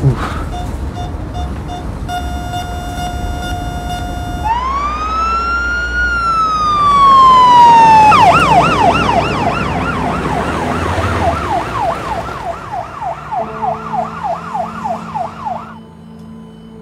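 Electronic ambulance siren: short repeated beeps, then a steady tone, then one slow rising-and-falling wail, then a fast warbling yelp that cuts off suddenly near the end. Low music notes come in underneath during the yelp.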